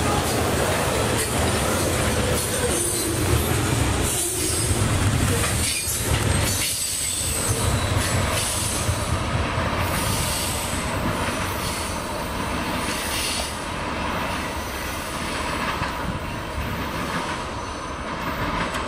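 Freight train of crude-oil tank cars rolling past, the cars and wheels rumbling and clattering steadily on the rails, with a faint high wheel squeal now and then. It grows a little quieter in the second half.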